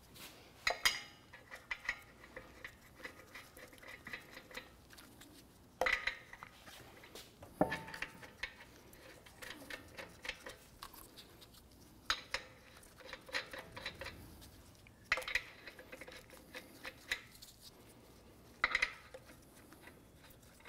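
Lug nuts being threaded onto the wheel studs by hand: light metallic clicks and rattles, with a sharper metal clink every few seconds, one of them ringing briefly about seven and a half seconds in.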